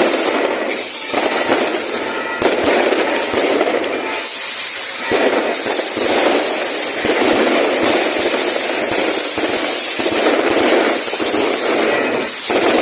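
Fireworks going off in a dense, continuous barrage of rapid pops and crackling, with a few brief dips in intensity.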